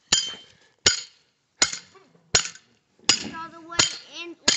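Steady metal-on-metal blows, about one every three-quarters of a second, driving a dog's chain tie-out stake back into the ground after it was pulled out. Each strike clinks and rings briefly.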